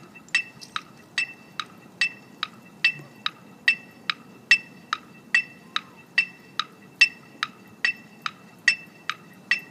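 Metronome clicking steadily at marching tempo, about 144 beats a minute (a little over two clicks a second), each click a short bright beep.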